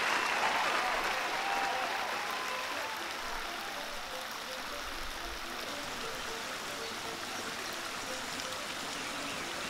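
Fountain jets splashing into a garden pool: a steady rush of water that fades down over the first three seconds, with faint short tones over it.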